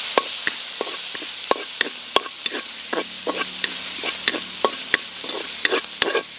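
Sliced red onions sautéing in a metal wok: a steady sizzle, with frequent irregular scrapes and taps of a spatula stirring them against the pan.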